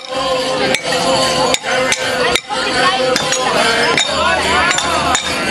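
Morris dancers' wooden sticks clashing together on a steady beat, about one strike every 0.8 seconds, with jingling leg bells and a tune playing underneath.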